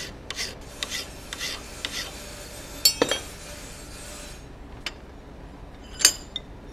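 Hand file rasping across the steel bevel of a 4142 hot-cut chisel in a few quick strokes, about two a second, putting the final touches on the short cutting-edge chamfer. The filing stops after about two seconds. Then comes a sharp metallic clink about three seconds in and another about six seconds in.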